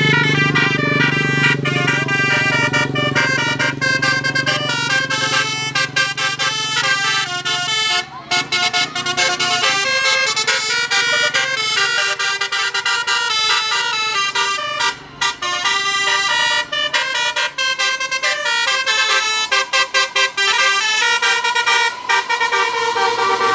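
A bus's telolet basuri multi-tone horn plays a quick tune of changing notes, with short breaks about eight and fifteen seconds in. A low engine hum sits under it during the first part.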